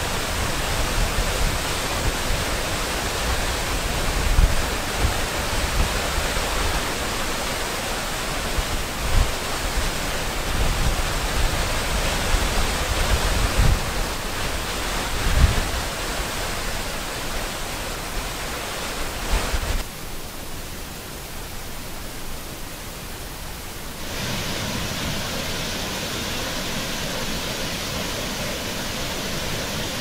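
Steady rush of falling water from a waterfall, with low rumbling gusts coming and going. About two-thirds of the way through it drops for a few seconds, then returns as a steadier, duller rush.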